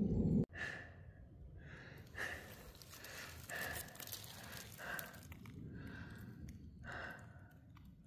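A person's breathing close to the microphone: soft, irregular breaths about once a second.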